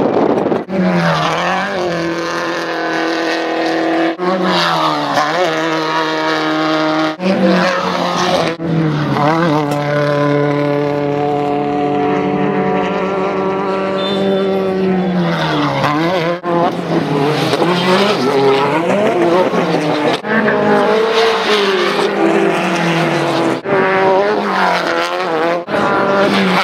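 Off-road race buggy engines revving hard, their pitch repeatedly climbing and falling as the throttle is worked, with a steadier high run in the middle. The sound breaks off abruptly every few seconds as one buggy's pass cuts to another's.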